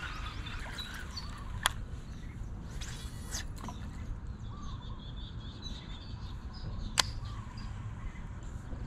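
Birds chirping over a steady low rumble, with two sharp clicks, one about a second and a half in and one near the end.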